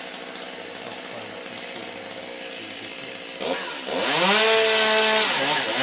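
Chainsaw idling, then revved up to full throttle about three and a half seconds in, held for about a second and a half and let back down toward idle near the end.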